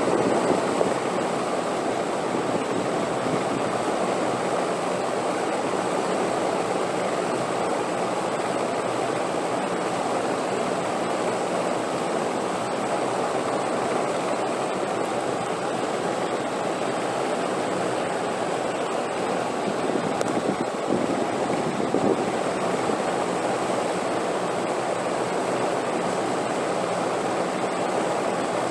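Steady wind noise, an even rushing without gusts or pauses, with a faint steady high tone above it.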